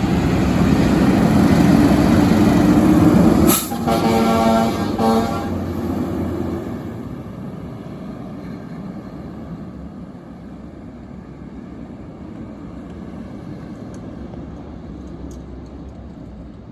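Pierce Enforcer fire engine drives past close by, then gives a few short horn honks about four seconds in. Its engine then fades steadily as it drives away.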